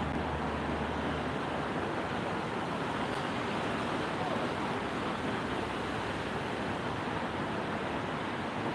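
Steady hiss of traffic on a rain-wet street, with tyres swishing on the wet road. A low engine hum sits under it in the first second or so.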